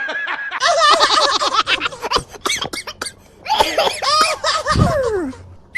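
High-pitched, cartoon-style laughing voice: two bursts of quick giggling syllables, the second ending in a falling pitch.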